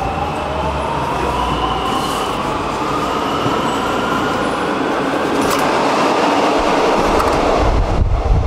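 Warsaw metro train running at a station: steady rumble of wheels and car body with an electric motor whine rising in pitch over the first five seconds, and a short hiss about five and a half seconds in. The sound changes abruptly near the end.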